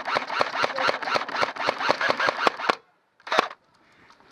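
Airsoft gun firing a long full-auto burst, a fast even stream of about eight sharp shots a second, which cuts off suddenly near the end; one short burst follows after a moment of silence.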